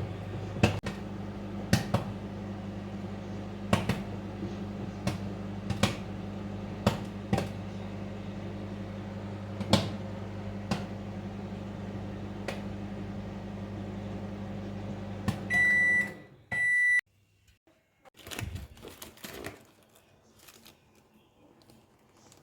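Microwave oven running with a steady hum while popcorn pops inside, the pops sparse and irregular at about one a second, as popping slows near the end of the batch. Two beeps sound around the two-thirds mark and the oven's hum stops; a few faint knocks follow.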